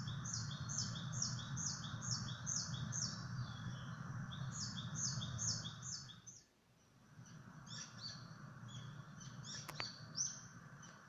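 Songbird song: a fast, rhythmic series of repeated high two-part notes, about four a second. About six seconds in the background hiss cuts out briefly, and the song gives way to more varied, irregular chirps and calls.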